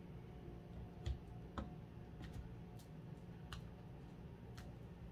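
Stacks of oracle cards being set down on a tabletop as the deck is cut into piles: a few faint clicks and taps, two of them a little louder about a second and a second and a half in.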